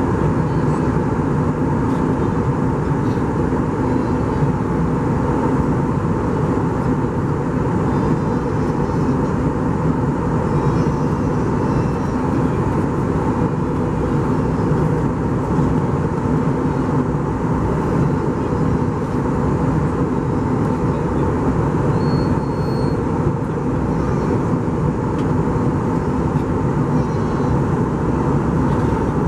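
Steady drone of an Airbus A320 in flight, heard inside the passenger cabin: engine and airflow noise, even and unchanging, with a low hum under it.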